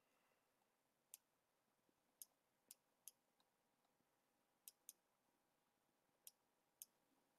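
Faint clicks of a computer mouse, about eight single clicks at uneven intervals, some in quick pairs, over near silence.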